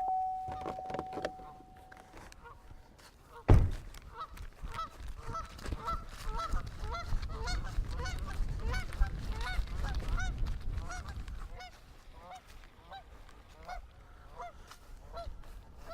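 Birds calling: many short, repeated calls in quick succession from about four seconds in, thinning out toward the end. A single sharp knock just before the calls begin is the loudest sound.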